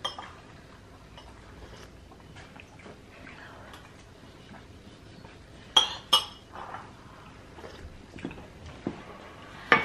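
Quiet sipping of hot coffee from a ceramic mug, with two sharp clinks about six seconds in and another clink near the end.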